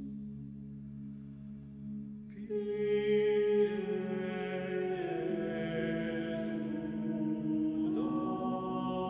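Six-voice a cappella vocal ensemble singing Renaissance Requiem polyphony in long held chords. Low voices sustain at first, higher voices enter about two and a half seconds in, and the chord changes near the end.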